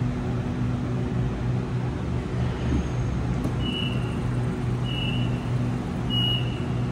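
Sydney Trains Waratah double-deck electric train standing at the platform, its onboard equipment humming steadily. About halfway through, the doors open with a click and a run of short high beeps, about one a second.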